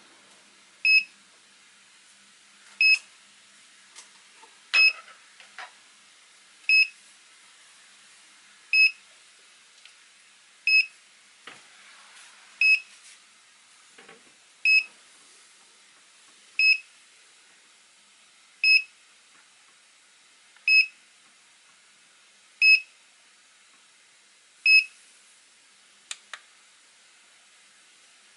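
Hobby LiPo charger beeping: a short high beep about every two seconds, the alert that the charge has finished at 4.19 V with the current down to zero. Near the end come two small clicks of the charger's push-buttons being pressed.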